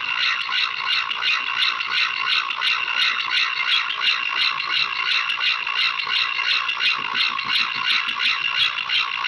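Black MIDI played through a phone MIDI player with the 8rock4gell soundfont: a harsh, dense wall of thousands of simultaneous synthesized notes. It is mostly high-pitched, with a beat about three times a second (172 BPM).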